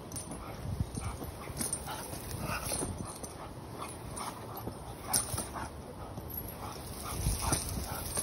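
A dog making small whines amid irregular scuffs and light knocks.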